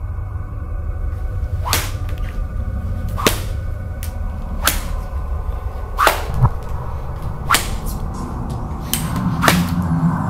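About seven sharp, whip-like cracks with a swishing edge, roughly one every second and a half, over a low, steady droning horror score.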